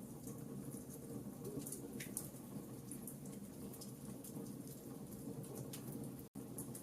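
Wood fire crackling in a fireplace: scattered sharp pops and snaps over a steady low rush. The sound cuts out for an instant near the end.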